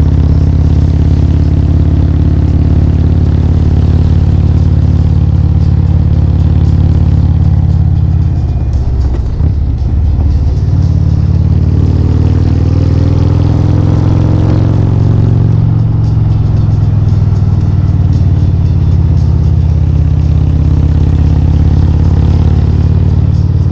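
Very loud, bass-heavy music through a car audio system's subwoofers, with the sound held almost entirely in the deep bass. The level dips briefly about nine seconds in.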